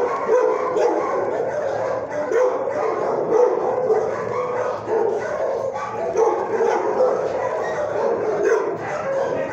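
Many shelter dogs barking and yipping at once in a kennel block, a constant overlapping din without pauses.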